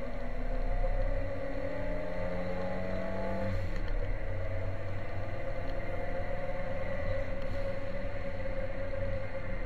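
Ford Sierra Cosworth 4x4's turbocharged four-cylinder engine, heard from inside the cabin, accelerating hard with rising revs; about three and a half seconds in the revs drop at an upshift, then climb again.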